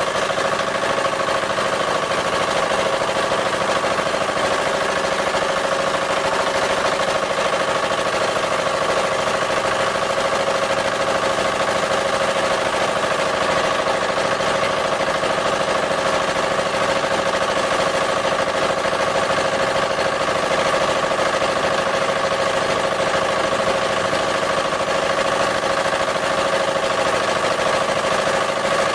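Engine of a wooden river boat running steadily while under way, a constant drone heard from on board.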